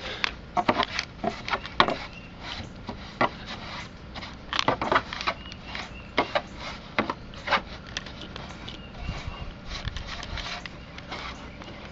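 Hand screwdriver working screws on the plastic chassis of a Caldera 10E radio-controlled truck: irregular clicks, taps and scrapes as the screwdriver and parts are handled.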